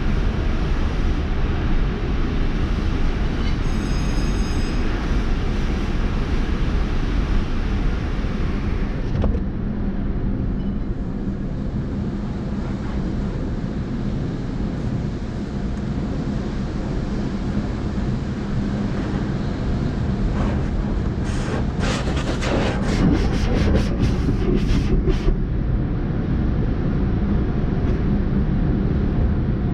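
Steady low rumble of a tunnel car wash heard from inside a car, as an attendant's hand-held wand sprays water over it; a cluster of sharp spatters of water hitting the glass comes about 21 to 25 seconds in.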